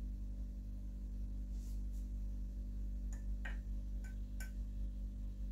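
A few faint taps and scrapes of a metal spoon against a saucepan, mostly in the second half, over a steady low hum.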